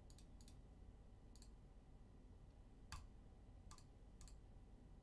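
Near silence with a handful of faint, scattered clicks of computer keys, the clearest about three seconds in.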